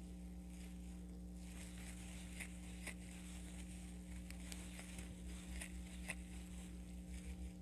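Crochet hook working yarn through double crochet stitches: faint scattered rustles and light ticks, about one a second, over a steady low hum.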